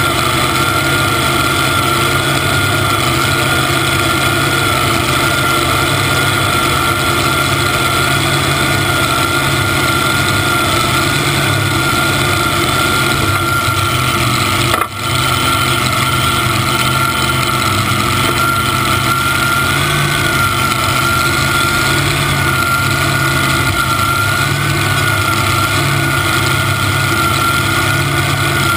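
Supercharged V8 engine of a modified-class pulling tractor idling steadily at close range, with a steady high whine over the rumble. The sound dips for a moment about halfway through.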